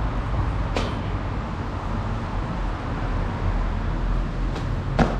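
Steady low rumble of street traffic, with a sharp knock about a second in as sneakers land on a stainless steel handrail, and a louder knock near the end.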